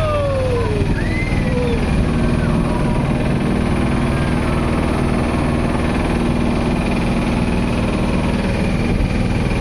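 Small river motorboat's engine running steadily under way, a dense low drone.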